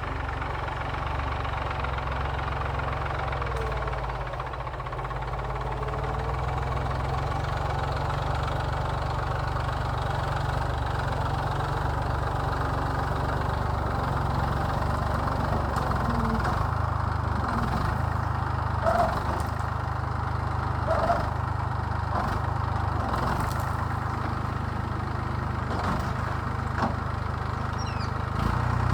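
Massey Ferguson tractor's diesel engine running steadily while ploughing, with a few short, sharp sounds in the second half.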